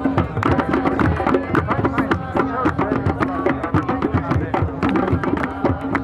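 Music of hand drums played together in a fast, dense rhythm, over a steady held note.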